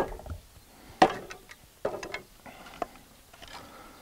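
Sharp wooden knocks, about one a second, four in all, then softer wooden clatter as a freshly turned birch bowl on its mandrel is knocked loose and lifted out of a pole lathe.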